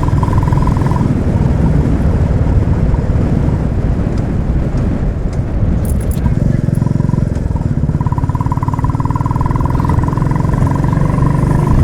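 Royal Enfield Classic 350's single-cylinder engine running steadily under way, with road noise.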